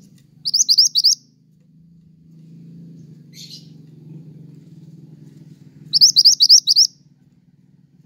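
A caged songbird chirping in two quick runs of high, rising notes, about four notes just after the start and about six near the end, with one fainter call in between; a steady low hum runs beneath.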